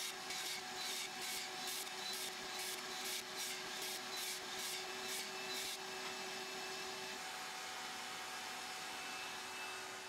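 Skil PWRCORE 20 XP 2x20V cordless circular saw cutting through a pine 4x4, a rasping sound pulsing about twice a second, over the steady hum of a dust extractor pulling through the saw's hose. The cutting stops about six seconds in, leaving the extractor's hum, which shifts higher in pitch about a second later.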